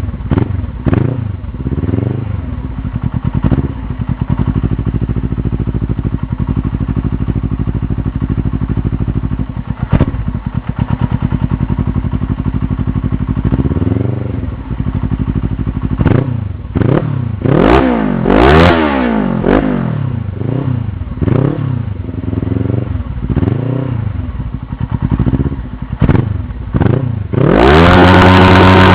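Suzuki GS500E parallel-twin engine, breathing through an open race silencer held to the exhaust, idling with the throttle blipped. The quick revs come now and then at first, then in a rapid string through the second half, and the engine is held at high revs near the end.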